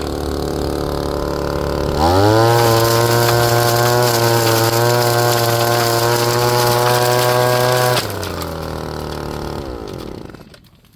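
Proyama 26cc two-stroke handheld blower, set up as a leaf vacuum and shredder, idling. It revs up to full throttle about two seconds in, holds there steadily for about six seconds, and drops back to idle. Near the end the engine is shut off and dies away.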